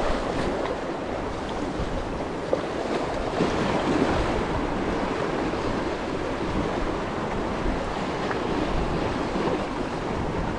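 Sea waves washing over shoreline rocks in a steady surge, with gusty wind rumbling on the microphone.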